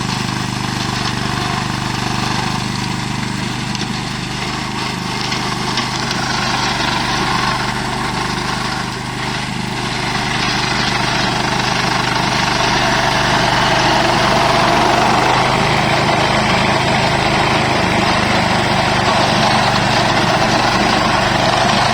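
Engine of a FrankTech RCM 3X3A radio-controlled lawn mower running steadily, growing a little louder about halfway through.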